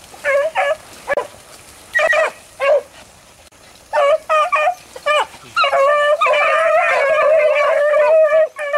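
A pack of rabbit hounds giving voice on a rabbit's scent line, running the trail: short separate barks at first, then from about midway several dogs baying together almost without a break.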